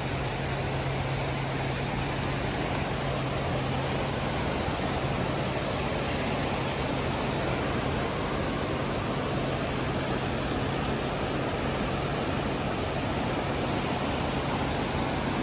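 Creek swollen with snowmelt floodwater rushing past in a steady, even wash of water noise. A steady low hum runs underneath.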